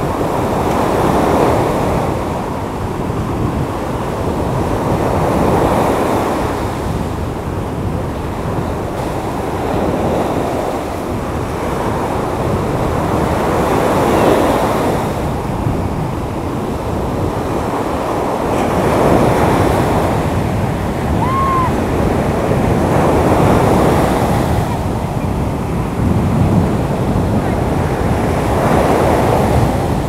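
Rough sea surf breaking and washing ashore, rising and falling in swells about every four to five seconds, with wind buffeting the microphone.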